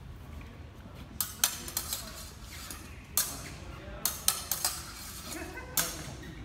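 Steel fencing blades clashing, a run of sharp metallic clinks at irregular intervals as blade meets blade in lesson drills.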